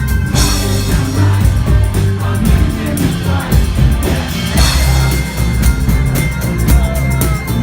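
Live band playing loudly, with a steady beat and singing.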